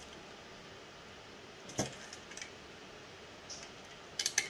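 Small clicks and clinks of screw and nut hardware handled against 3D-printed plastic extruder parts: one a little before two seconds in, then a quick cluster of several near the end.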